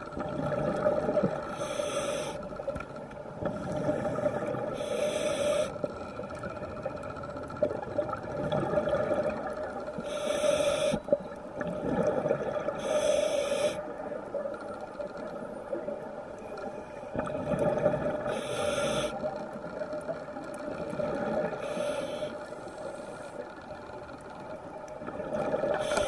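Scuba diver breathing through a regulator at depth: a short hiss with each inhalation every few seconds, and bubbling, rumbling exhalations between them. A steady hum runs underneath.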